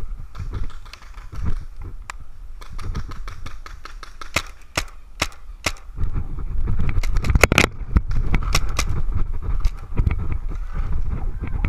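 Paintball markers firing: a scattering of sharp pops, several in quick runs around the middle. In the second half a low rumble of wind and movement on the microphone rises under them.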